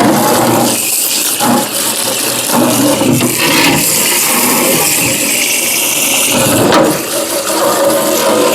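Running water splashing steadily, as from a tap or hose rinsing refrigerator parts being washed.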